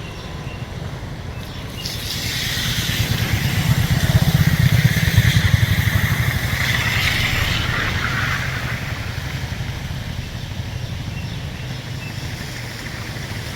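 A motor vehicle's engine passes by, growing louder to a peak about four to five seconds in and then fading.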